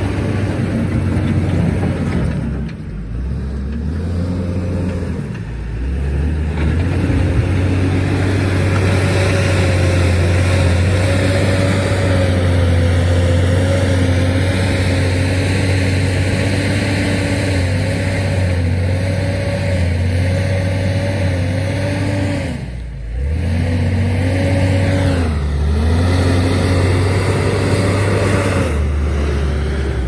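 Diesel engine of a JCB 432 wheel loader running under load as it pushes and levels gravel with its bucket. Its pitch wavers with the work and the engine speed drops briefly several times, about five dips, before picking up again.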